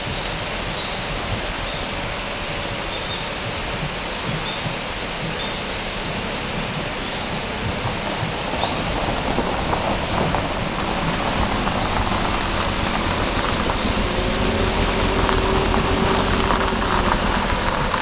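Daihatsu Hijet kei truck driving slowly up a gravel road, its tyres crunching over the gravel, getting louder as it comes close and passes in the last third, over a steady rushing noise.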